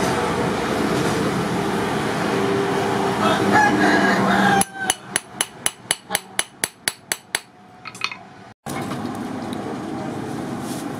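Rapid, evenly spaced hammer blows on a steel rod of rebar laid across a small anvil, about five a second for some three seconds. Before them a steady rushing noise, with a rooster crowing once; after a short break, the steady rush of the forge's fan blowing on charcoal.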